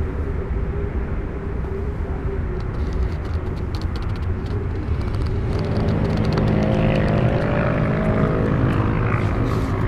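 A steady low rumbling drone, with a pitched hum that comes in and swells from about halfway through, and a few faint ticks above it.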